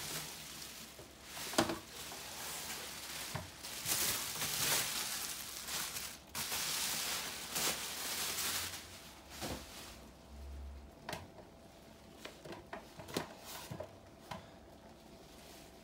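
Plastic bubble wrap rustling and crinkling in bursts as it is pulled off a laptop and folded, with a few sharp knocks as the laptop is handled on a table. About two-thirds of the way through the rustling dies down, leaving scattered light taps.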